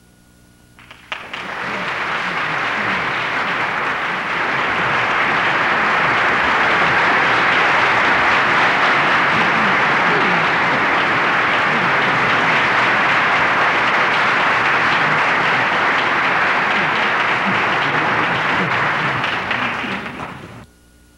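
Audience applauding. The clapping starts about a second in, swells over the next few seconds, holds steady, and cuts off suddenly near the end.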